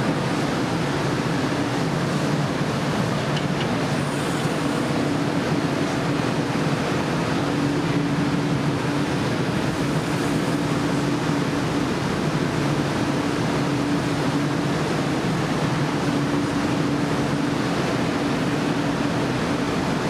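Steady roar of a glassblowing hot shop: gas-fired furnace and glory-hole burners with exhaust fans, running without a break, with a faint hum that comes and goes.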